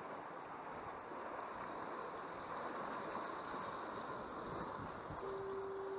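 Wind on the microphone over ocean surf, a steady rushing. About five seconds in, a steady humming tone starts and holds.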